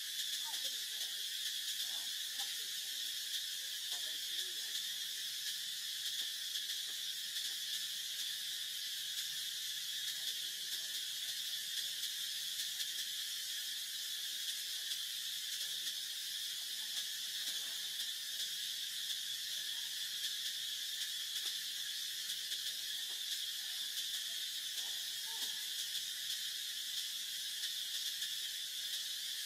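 A steady insect chorus: a shrill, unbroken drone holding one pitch throughout.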